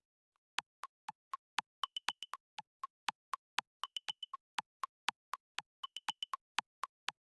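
Clock-style ticking of a quiz countdown timer sound effect, about four ticks a second, with a short higher ringing tone on a few ticks every two seconds.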